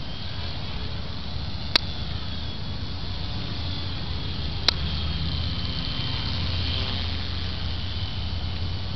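Small radio-controlled plane's motor and propeller giving a thin, high whine that fades and grows stronger as it flies about, over a steady low rumble. Two sharp clicks, about two and five seconds in.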